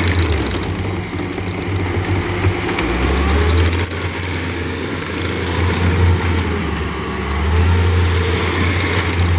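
Bobcat T450 skid steer's diesel engine running, its low drone swelling and easing every second or two.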